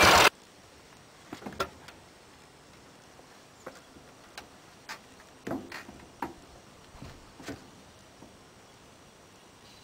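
An old Russian boxer-twin sidecar motorcycle engine running, cut off abruptly right at the start. Then scattered light knocks and creaks as someone climbs onto and stands on the sidecar's sheet-metal body.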